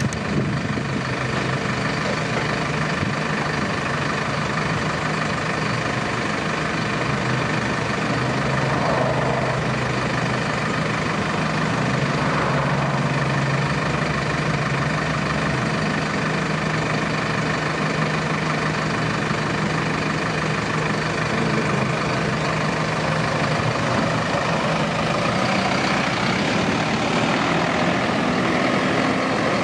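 Hino small dump truck's diesel engine idling steadily while the raised dump bed is lowered. Its pitch rises slightly near the end.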